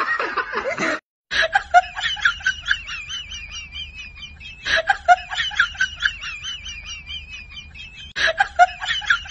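Rapid, high-pitched cackling sound effect. The same clip of about three and a half seconds is played in a loop, starting about a second in after a brief cut, and runs three times over.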